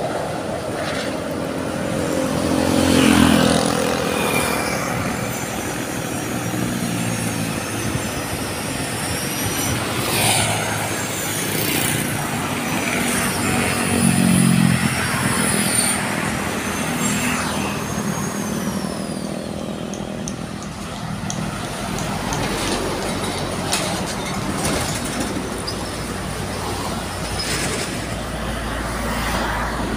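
Highway traffic passing close by: motorcycle and truck engines swell and fade as each vehicle goes by. A heavy lorry's deep engine rumble builds near the end as it passes.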